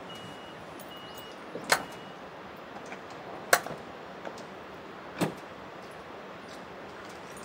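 Toyota Hiace van's sliding side door closing to high warning beeps, about one a second, which stop with a sharp latching thud about two seconds in. Two more sharp knocks follow, a couple of seconds apart.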